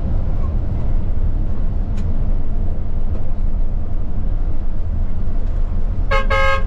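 Steady low rumble of a Higer coach bus running on the road. Near the end a vehicle horn sounds briefly.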